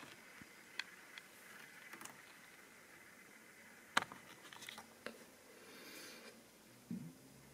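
Light clicks and knocks of a camera being handled and repositioned over a quiet room, with one sharper knock about halfway through. A low steady hum starts near the end.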